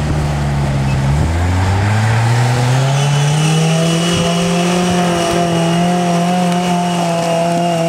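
Vehicle engine accelerating: its pitch rises over about two seconds, then holds steady at high revs.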